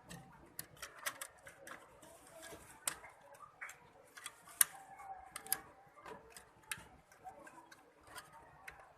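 Irregular light clicks and taps of small plastic and metal computer parts being handled on an opened PC, around the CPU and heatsink fan, with one sharper click about halfway through.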